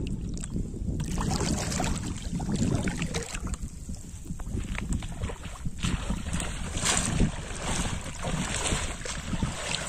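Wind rumbling on the microphone over pond water splashing and sloshing, the splashing thickening from about a second in.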